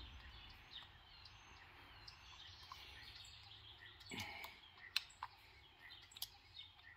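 Faint bird chirps, with a few sharp little clicks of a screwdriver working the terminal screws of an electrical plug.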